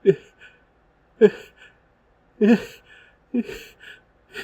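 Hitching pre-sneeze gasps: short voiced catches of breath about once a second, each followed by a little puff of breath, as a dust-triggered sneeze builds but stays stuck.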